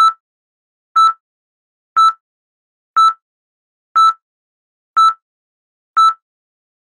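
A short electronic beep repeats evenly once a second, seven times, with silence between beeps.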